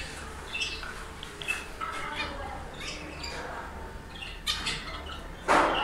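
Zebra finches giving many short, nasal chirping calls, with a brief louder burst of noise about five and a half seconds in.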